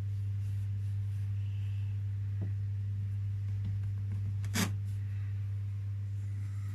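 Steady low hum, with a faint knock about two and a half seconds in and a sharp click about four and a half seconds in.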